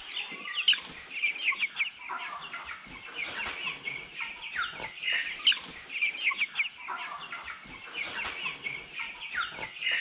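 A flock of young broiler chicks (Cobb 500) peeping continuously, many short high chirps overlapping one another.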